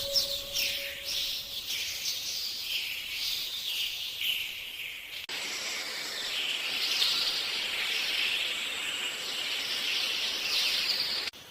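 Birds chirping with many quick high-pitched calls; about halfway through the sound changes abruptly to a denser, busier chorus of chirps.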